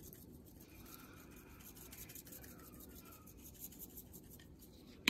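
Faint scratchy rattle of dried seasoning being shaken from a spice container onto a sauce, over a low steady hum. A sharp click comes right at the end.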